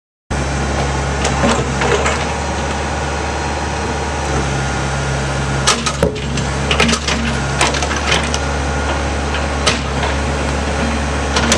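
Diesel engine of a backhoe loader running steadily with a low hum, with sharp cracks and clatter of demolition debris now and then, the loudest group about six seconds in.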